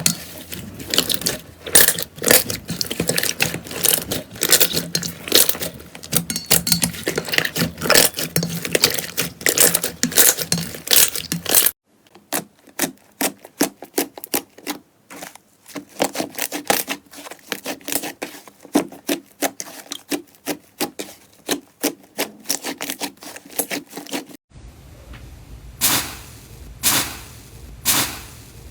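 Slime being squeezed and poked by hand: a dense run of small crackling clicks and pops, sparser pops after an abrupt cut about twelve seconds in, and three separate louder pops near the end after another cut.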